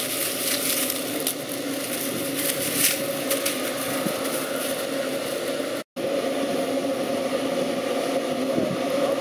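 Steady drone of a farm machine's engine running, with dry corn stalks crackling and rustling in the first half as a puppy tugs on them and runs through the stubble. The sound cuts out for an instant about six seconds in, then the engine drone carries on.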